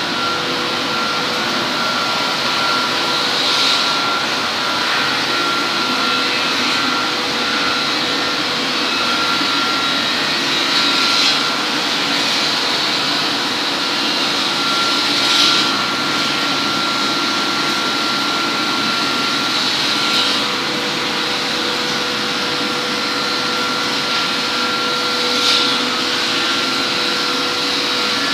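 Woodworking workshop machinery running: a steady, loud noisy drone with two constant hum tones, and a brief hiss-like swell every few seconds.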